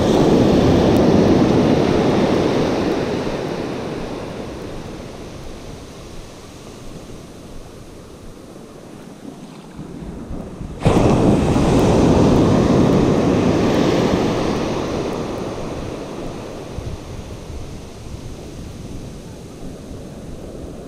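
Surf breaking and washing up a sandy beach: two surges of rushing water, one at the start and a second about halfway through, each starting suddenly and fading away over about ten seconds.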